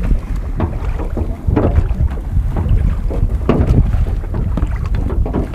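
Wind blowing hard on the microphone, with irregular rustles and knocks as a gill net is fed out over the side of a small metal boat.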